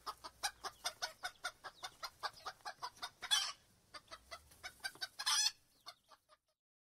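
Chicken clucking in a quick run of short calls, about five a second, broken twice by a louder, noisier burst about two seconds apart; the clucking then trails off and stops shortly before the end.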